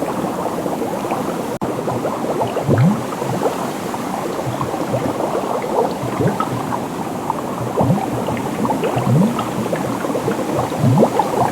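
Liquid bubbling continuously with many small bubbles popping, each a short upward-gliding blip. A handful of deeper gurgling bubbles are heard every second or two, and there is a momentary drop-out about one and a half seconds in.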